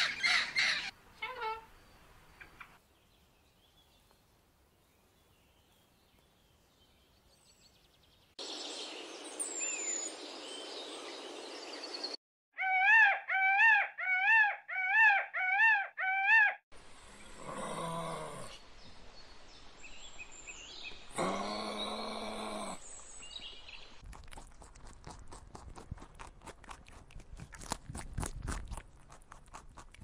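A run of different animal sounds with cuts between them. First a blue-and-gold macaw squawks in short calls, then comes a few seconds of near silence and a stretch of hiss with a single bird call. After that a peacock gives six loud repeated calls, and a string of mixed sounds and dense clicking follows.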